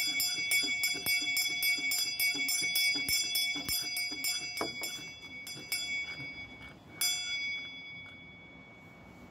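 A set of four small tuned bells (f''', b-flat''', c'''', d-flat'''') rung rapidly from cords in a quick, even run of about four strikes a second, their high tones overlapping. The strikes thin out after about five seconds, with a last single stroke near seven seconds, and the ringing then dies away.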